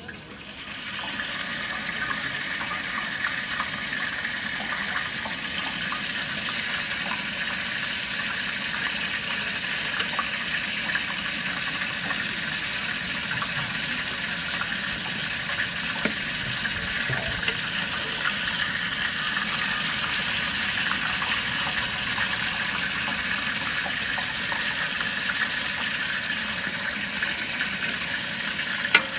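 Curry gravy boiling steadily in a large aluminium pot, with a long ladle stirring through it; the bubbling starts about a second in.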